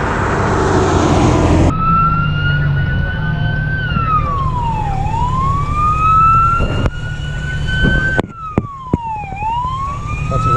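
Road traffic noise for the first couple of seconds, then an emergency vehicle's siren in a wail: a slow rising tone that drops quickly and climbs again, repeating about every four seconds. It is heard from inside a car, with a low engine hum underneath.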